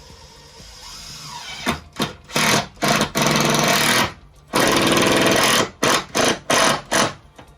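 A handheld power tool run in a series of bursts, two lasting about a second and several short blips, with its motor whining up and stopping each time, while working on a wooden gate.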